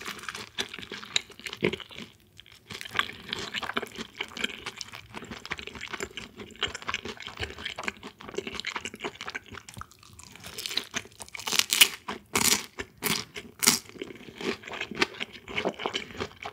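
Close-miked chewing and crunching of Korean fried chicken coated in sweet yangnyeom sauce, with a run of louder, sharper crunches about eleven to fourteen seconds in.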